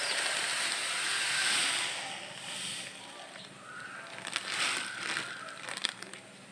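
Granulated sugar pouring from a plastic bag into a plastic jar: a steady rushing hiss for the first two and a half seconds or so, then fading, with scattered crackles of the bag.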